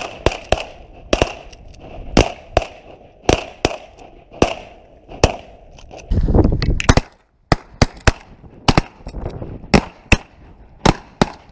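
Shotguns of several duck hunters firing a long volley of about twenty sharp shots, some loud and some fainter, overlapping and uneven in spacing.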